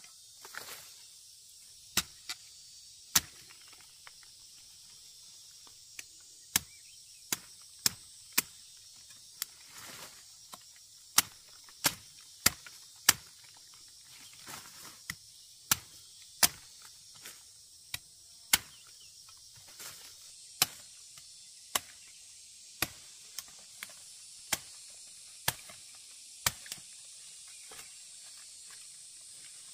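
Machete chopping through the strands of a harvested palm fruit cluster: sharp chops at irregular intervals, roughly one a second, over a steady high insect hiss.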